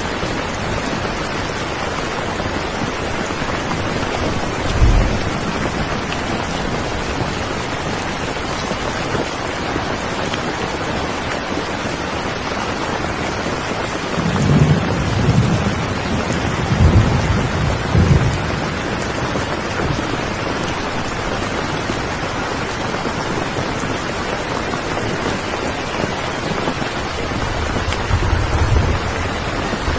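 Steady heavy rain, with low rumbles of thunder at about five seconds, several between fourteen and eighteen seconds, and again near the end.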